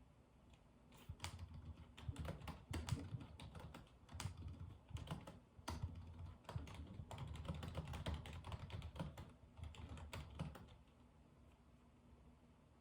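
Typing on a computer keyboard: a quick, irregular run of key clicks that starts about a second in and stops a couple of seconds before the end.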